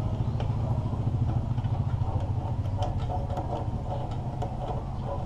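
A small engine running steadily at idle, a low pulsing rumble, with scattered light clicks and taps from parts being handled.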